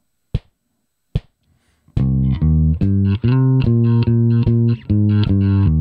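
Two evenly spaced clicks counting in, then about two seconds in an electric bass guitar, played fingerstyle, starts a steady eighth-note line: a climbing C minor arpeggio (C, E-flat, G, C) leading into repeated B-flat notes.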